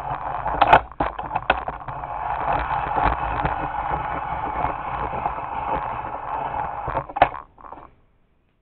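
Handling noise from moving things about by hand: a few knocks, then several seconds of steady rustling and scraping, and a single loud clunk near the end.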